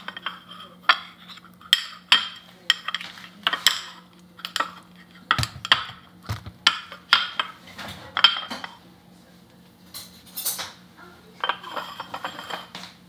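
Metal spoon clinking and tapping against plates and an ice cream tub while ice cream is scooped and served, a dozen or more sharp clinks at an uneven pace, each ringing briefly. A faint steady low hum runs underneath.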